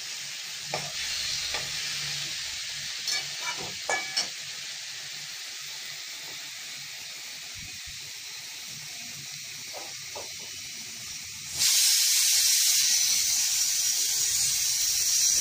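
Vegetables frying in a metal wok with a steady sizzle, and a few clinks and scrapes of a metal spatula in the first few seconds. About twelve seconds in, a much louder hiss starts suddenly as turmeric is poured into the hot wok and steam billows up.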